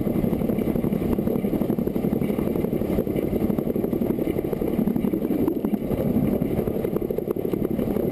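Narrow-gauge steam locomotive Loch, a Beyer Peacock 2-4-0 tank engine, running downhill on minimal power: a steady rumble of the train rolling along the rails.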